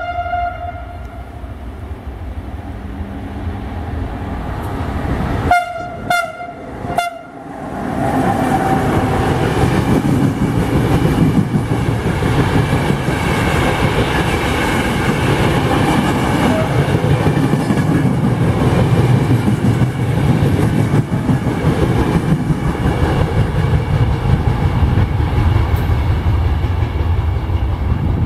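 A passenger train's horn sounds once at the start and again as a few short blasts about six seconds in. The train then passes close by, running through the station: a loud, steady rumble with wheels clattering over the rails for about twenty seconds.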